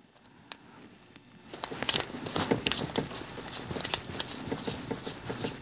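Small ultralight canister stove being screwed by hand onto a threaded gas canister valve: a run of light clicks and ticks from the metal parts, starting about a second and a half in.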